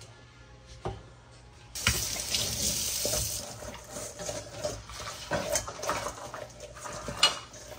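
Kitchen tap turned on about two seconds in, water running into the sink, loudest at first and then more broken, with a few clinks of dishes.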